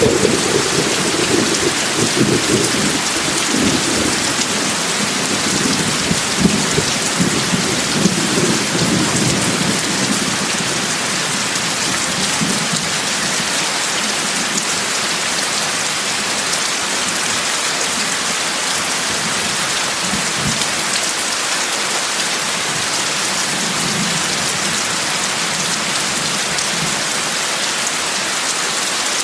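Steady, heavy rain hissing, with low thunder rumbling irregularly through the first ten seconds or so, then fainter rumbles later on.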